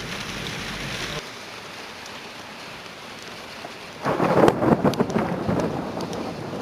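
Thunderstorm with heavy rain hissing steadily. About four seconds in, a loud crackling peal of thunder breaks out, many sharp cracks in a row, then fades.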